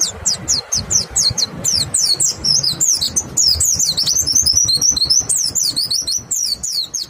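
White-eyes (pleci) singing a fast rapid-fire 'nembak' song: a dense stream of high, quickly falling chirps, several a second and at times overlapping, over a low background rumble. The song cuts off abruptly at the end.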